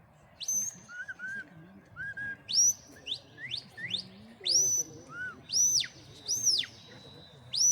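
A shepherd's whistle commands to a working sheepdog: about eight loud, sharp whistles that sweep steeply up and fall back, some held high, with softer short, lower notes in between.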